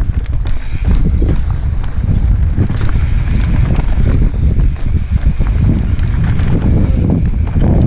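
Mountain bike riding down a rocky dirt singletrack, heard from a helmet-mounted GoPro: a constant low rumble of wind on the microphone, with tyres rolling over dirt and rock and quick sharp clicks and rattles from the bike jolting over bumps.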